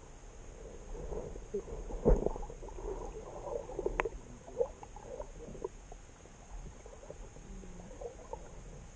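Underwater sounds picked up through a submerged camera: scattered muffled knocks, clicks and burbles, with a louder thump about two seconds in and a sharp click about four seconds in, over a faint steady high whine.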